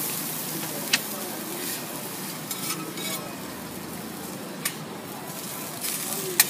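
Food sizzling steadily on a flat-top iron griddle while metal spatulas scrape and fold it. There are sharp clacks of spatula on griddle about a second in, again near five seconds, and loudest just before the end.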